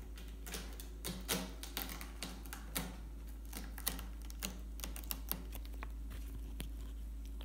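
Irregular light taps and clicks of a ragdoll kitten's paws and claws batting and catching on a cat condo's sisal-wrapped post and carpeted platform, over a steady low hum.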